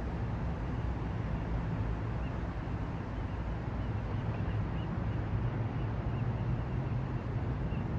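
Steady waterfront city ambience: a low, continuous rumble of distant traffic and engines. Faint, short, high chirps repeat every half second or so from about two seconds in.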